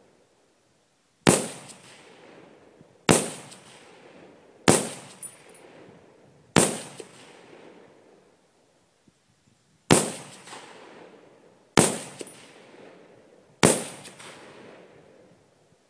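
Seven single rifle shots from an AR-platform rifle chambered in .30-06 Springfield, fired one at a time about one and a half to two seconds apart, with a longer gap after the fourth. Each sharp crack is followed by an echo that fades over a second or more.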